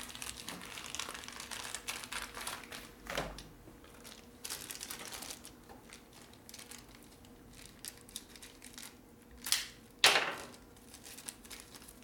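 Plastic packaging of a motorcycle parts kit crinkling and rustling as it is handled and opened, in stretches, with two louder sudden crackles near the end.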